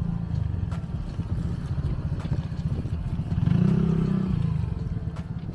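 Street ambience: a steady low rumble with scattered light ticks, and a motor vehicle's engine passing close by, loudest a little past halfway.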